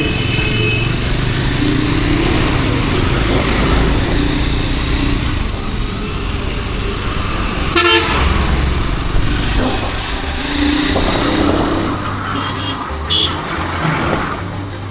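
Riding noise from a Triumph Scrambler 400X motorcycle in city traffic: a steady engine and wind rumble, with short vehicle-horn toots from the traffic, a couple of them near the end.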